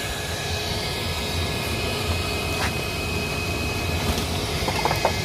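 Handheld air blower running steadily with a motor whine, blowing air onto a barbecue grill's charcoal to fan the coals.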